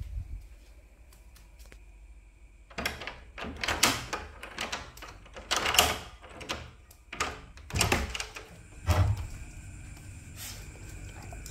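Wooden door with a metal lever handle being unlocked and opened: a run of sharp clacks and knocks from the lock, handle and door, the last a dull thump.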